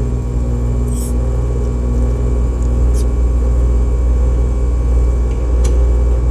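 Rooftop air-conditioning unit running with a steady low hum from its compressor and condenser fan, back in operation and cooling. A few light clicks and knocks of handling are heard over it.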